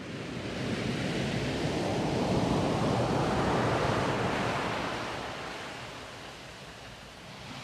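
A steady rushing noise, the intro sound effect of a music video, swells over the first couple of seconds and then slowly fades.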